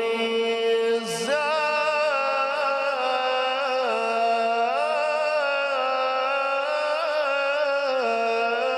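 A man reciting the Quran in a melodic tajweed style into a microphone. His single voice draws out long held notes that glide and waver in pitch, and a new phrase begins about a second in.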